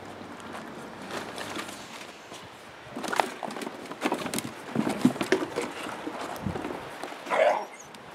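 Dutch shepherd puppies playing: light rustling on a plastic tarp, then from about three seconds in irregular knocking and clattering as they scramble in a hard plastic paddling pool among small plastic toys.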